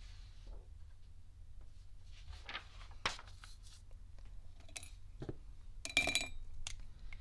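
Desk handling noises: a paper sheet rustled and laid down, with scattered small clicks and taps, the sharpest cluster about six seconds in, over a steady low hum.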